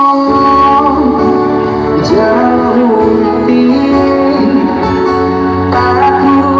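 Music with singing played loud through Blizzard Audio's sound system, with a strong, steady bass underneath.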